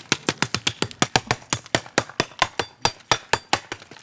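Machete chopping a dry stick of firewood into small pieces: a rapid, even run of sharp blows, about six a second.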